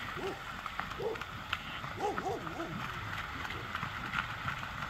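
Flock of American white pelicans feeding on the water: a steady splashing hiss, with several short, low hooting calls among it and a quick run of them about two seconds in.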